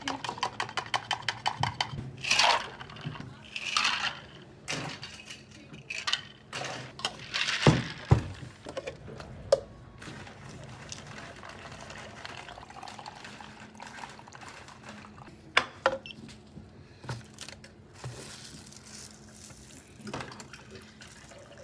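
A bubble tea being made: a plastic shaker cup rattles quickly at the start, then liquid is poured and cups are set down, with two sharp knocks about eight seconds in. After that there is quieter handling with a few clicks.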